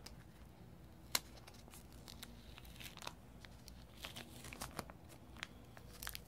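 Faint scratching and small clicks of a craft knife blade slitting the seal of a small white paperboard box, with the box's paper rustling as it is handled. One sharper click comes about a second in, and the scratching gets busier toward the end.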